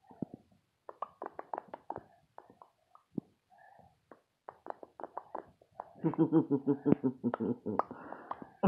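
A toddler making mouth noises: a run of short lip-smacking and popping clicks, then a rapid pulsing tone from about six seconds in.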